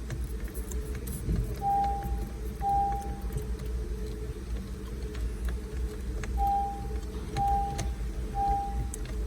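Vehicle's electronic warning chime: short, even beeps about once a second, twice at first and then steadily from about two-thirds of the way in, over a steady low hum, with a few faint clicks of tool handling.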